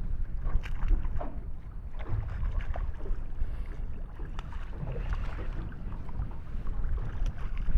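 Wind rumbling on the microphone aboard a small boat, with water slapping and short knocks against the hull.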